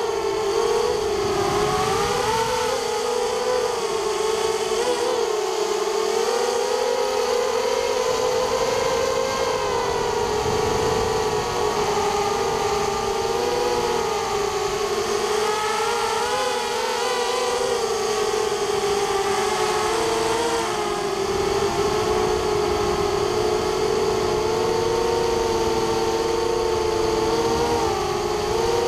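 A hexacopter's six brushless motors and propellers whining in flight. Several close tones waver up and down in pitch as the throttle changes, and they split into two distinct tones in the last few seconds.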